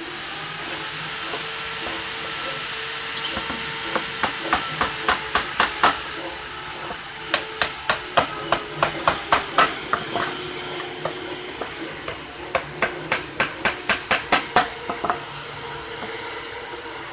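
Small hammer driving thin nails into the wooden panels of a miniature house, in three runs of quick light taps at about four to five strikes a second, over a steady background hiss.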